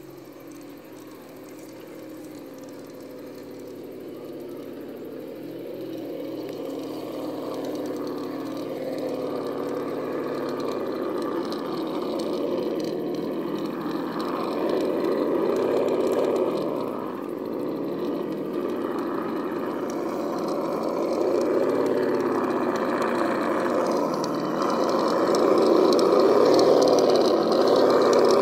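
Electric motor and gear train of a Vaterra Ascender RC rock crawler whining as it crawls closer, growing steadily louder, its pitch rising and falling with the throttle.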